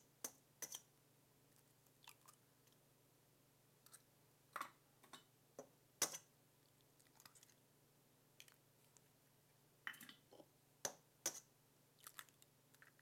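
Eggs being cracked against a stainless steel mixing bowl and opened into it: scattered short, sharp taps and cracks of shell, the loudest about six seconds in, over quiet room tone.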